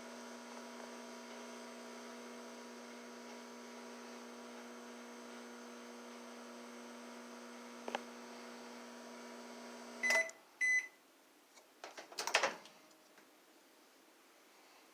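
Toshiba EM925A5A-SS 1100-watt microwave oven running with a steady hum, a standard microwave noise, that stops about ten seconds in. The end-of-cycle signal follows: two short high beeps, then a clunk a little later.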